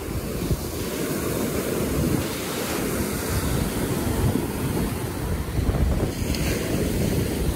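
Surf: small waves breaking and washing up the shore, with wind buffeting the microphone.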